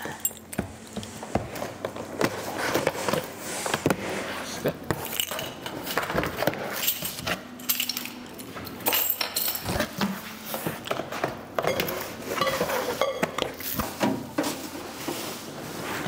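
A bunch of keys jangling as the packing tape on a cardboard microwave box is cut open with a key, with irregular scraping, tearing and knocking of cardboard and packaging.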